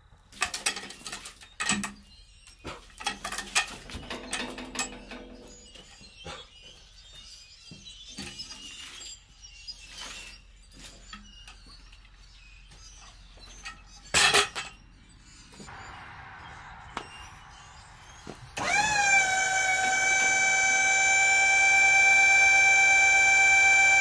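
Scattered knocks and clunks, then about 18 seconds in the hydraulic pump of a Wood-Mizer LT40 Super sawmill starts up. Its whine rises quickly and then holds steady and loud as the loader arms lift a log onto the mill.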